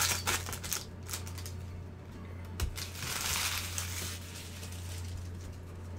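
Foil baseball-card pack wrapper crinkling and rustling as the pack is handled and opened in gloved hands, with crackly bursts at the start and a longer rustle about three seconds in. A steady low electrical hum runs underneath.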